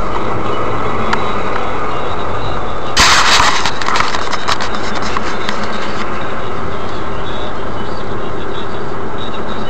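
Steady road and engine noise of a car heard from inside the cabin through a dashcam, with a brief louder rushing noise about three seconds in.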